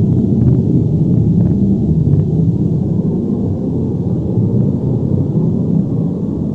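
Sound effect of an earthquake or avalanche: a deep, steady rumble with a few faint crackles in the first two seconds.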